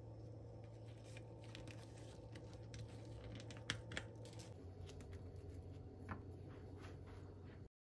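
Small clicks and light handling sounds over a steady low hum, with a few sharper clicks in the middle; everything cuts off suddenly near the end.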